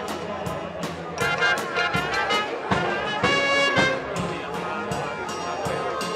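High school marching band playing, with brass and woodwinds holding notes over frequent sharp percussion strikes.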